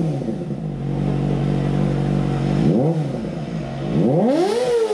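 Kawasaki ZX-25R 249 cc inline-four idling through a Two Brothers carbon slip-on exhaust, blipped briefly about three seconds in and revved higher near the end, the pitch rising and falling back to idle. The note through this pipe is fairly tame.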